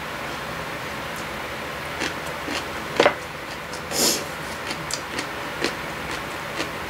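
Scattered light clicks and taps of chopsticks and a spoon on bowls during a meal, with a sharper click about three seconds in and a brief rustle about a second later.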